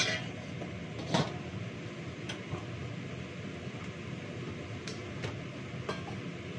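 Steady fan hum with a handful of sharp clinks and knocks of dishes and utensils being handled at a kitchen counter, the loudest right at the start and about a second in.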